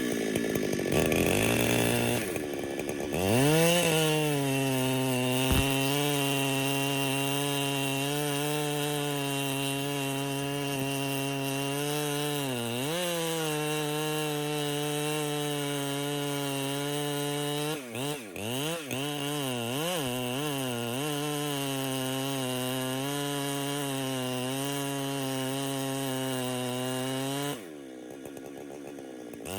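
Chainsaw revving up and running at a steady high speed in a cut, its pitch dipping briefly twice midway, then dropping back to idle near the end.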